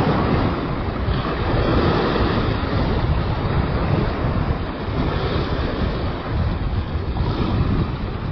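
Wind buffeting the microphone, with waves washing against the rocks of a breakwater: a steady, loud, uneven rush.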